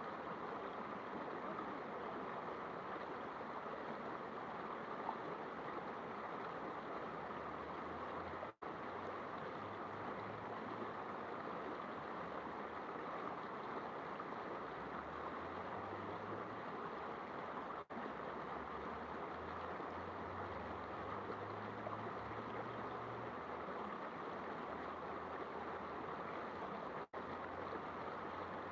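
Steady rushing of a river's flowing water. The sound cuts out for an instant three times, about nine seconds apart.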